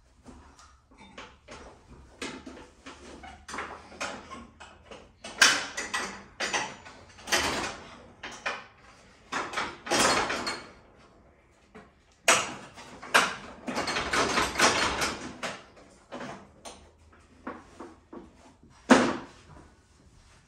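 Steel mower deck of a John Deere lawn tractor being fitted by hand: irregular metal clanks, knocks and sliding scrapes, with a few sharp clanks, the loudest near the end.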